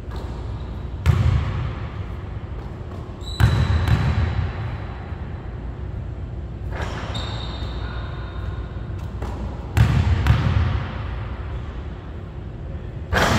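Basketball bouncing on a hardwood gym floor: a few separate heavy thuds, single or in quick pairs, each echoing through the large hall.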